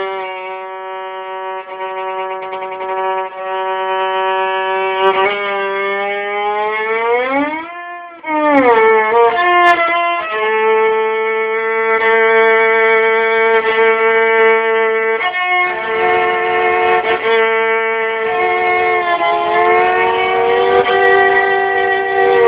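Solo violin imitating racing engines: held bowed notes over a lower steady drone, with a quick swoop up and back down in pitch about eight seconds in, like an engine revving past, then steady held notes sounding two at a time.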